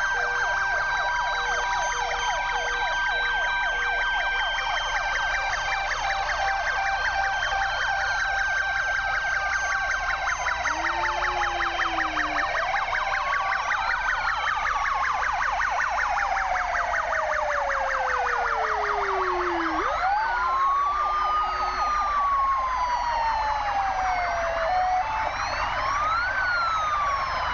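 Many fire engine sirens sounding together as a column of fire trucks drives past: overlapping fast-warbling and wailing tones, with a two-tone hi-lo horn that stops a few seconds in. One wail slowly falls in pitch and then sweeps sharply back up about twenty seconds in.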